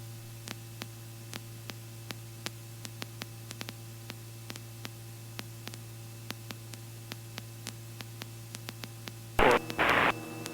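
Steady low hum with faint hiss on a Robinson R44 helicopter's headset intercom feed, crossed by faint clicks a few times a second. A short loud burst comes near the end.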